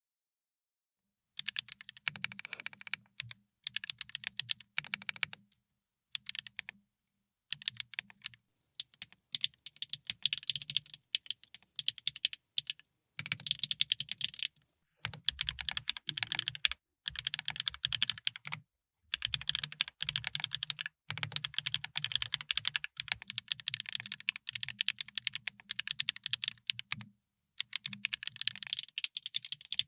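Typing on a TGR Lena custom mechanical keyboard fitted with HMX Pearl switches: runs of rapid key clacks in bursts of a few seconds, broken by short pauses. The typing starts about a second and a half in.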